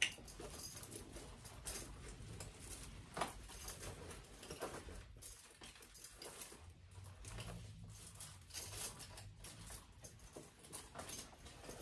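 Soft rustling with scattered small clicks and clinks as clothing and accessories are handled.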